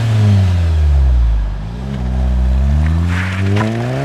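Turbocharged 2.0 TSI four-cylinder engine of a VW Golf 7 GTI, heard through an Akrapovic exhaust. The engine note falls as the revs drop over the first second and a half or so, then climbs steadily again as the car accelerates.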